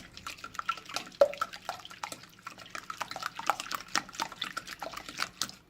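Hand whisk beating eggs in a bowl: a rapid, irregular run of clicks from the wires against the bowl, with wet, liquid sounds.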